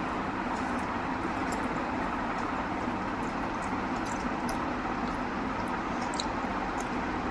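Steady background noise with faint, scattered small wet clicks of someone chewing rice and curry.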